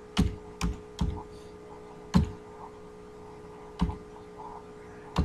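Computer keyboard being typed on: about six separate keystrokes, spaced unevenly, over a faint steady hum.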